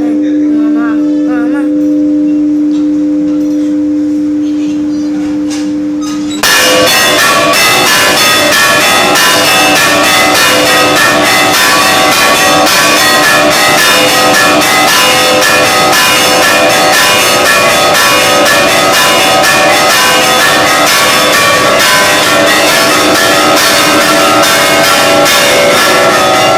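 Church bell ringing. A bell's hum rings on for about six seconds, then loud, rapid, evenly spaced strokes start suddenly and keep going, each one ringing into the next.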